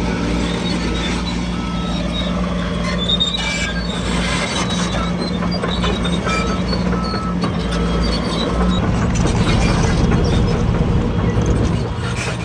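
Diesel engine of heavy earthmoving machinery running steadily, its note changing about nine seconds in, with short high beeps now and then.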